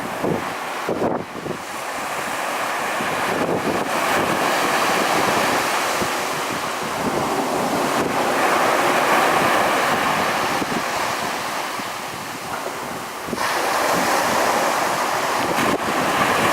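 Ocean surf washing onto a beach, with wind buffeting the microphone. The rushing noise swells and eases in slow surges and jumps up suddenly near the end.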